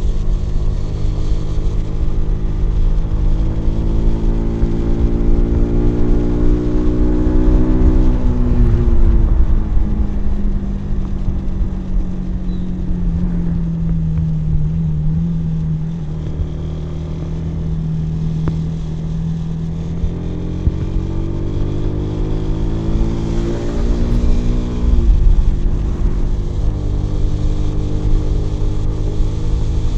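Kawasaki W175's single-cylinder engine and exhaust under way. It climbs in pitch under throttle, then drops sharply about nine seconds in and runs steadier and lower. It climbs again and drops sharply again about twenty-five seconds in.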